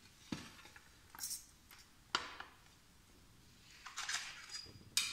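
Aluminium snap-frame profile strips clinking and knocking against each other and the table as they are handled: a few sharp knocks with lighter rattling between them.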